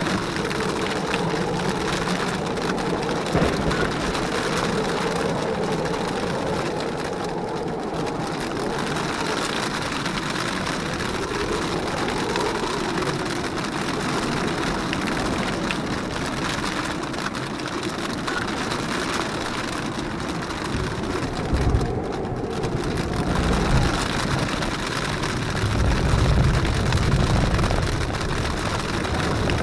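Jeep Wrangler JKU's V6 engine running steadily at low speed as it crawls up a rough dirt trail, with a steady hiss of rain and wind over it. About two-thirds of the way in, a few louder low rumbles come through.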